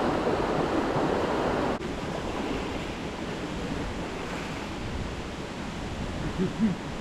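Steady rush of falling water from a waterfall, dropping suddenly to a quieter rush about two seconds in.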